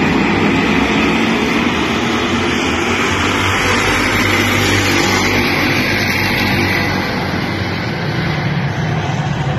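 A pack of stock race cars running together around a short oval, their engines at racing speed in a loud, steady, dense engine noise.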